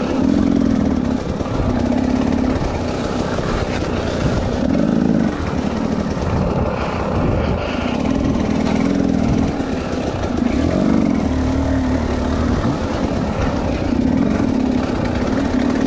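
Dirt bike engine heard from the rider's helmet, revving in repeated short bursts and dropping back as the throttle is worked over rough ground.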